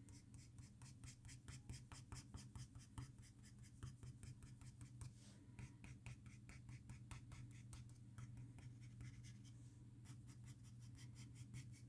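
Soft 6B graphite pencil scratching on paper in many quick, short strokes as fur is drawn, faint, over a low steady hum.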